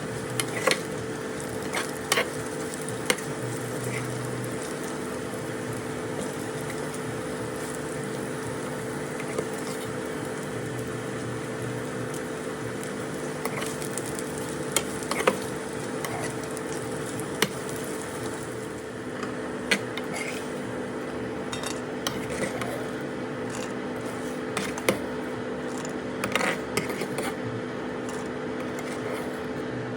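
Food frying in a pan and being stirred, with a spatula clicking and tapping against the pan now and then over a steady hum.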